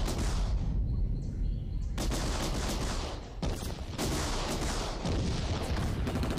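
Battle soundtrack: rapid machine-gun and rifle fire over a low rumble, easing briefly about three and a half seconds in.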